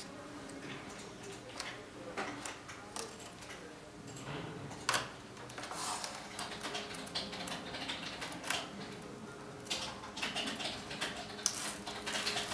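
Hands handling self-adhesive plastic turbulator strips and pressing them onto a foam model-plane wing: scattered light rustles, ticks and taps.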